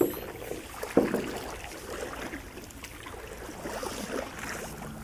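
Stand-up paddleboard paddle strokes in calm river water: a sharp splash as the blade dips in at the start and again about a second in, then water gurgling and dripping off the blade.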